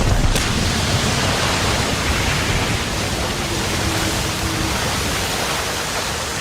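A loud, steady rushing roar of noise with no clear pitch. It starts abruptly and slowly eases off near the end.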